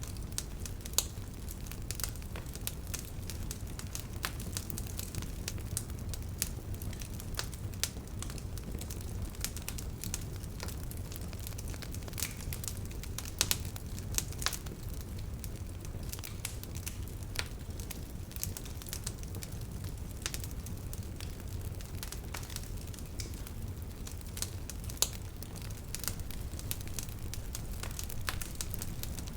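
Wood bonfire crackling: irregular sharp snaps and pops from burning wood, a few louder ones scattered through, over a low steady rumble of the flames.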